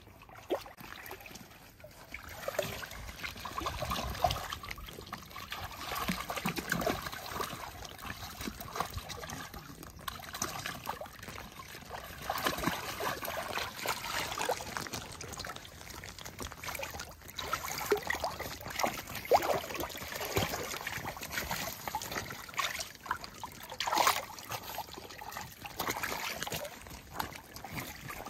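Two otters playing in a pool: water splashing, sloshing and trickling, with irregular sharp splashes.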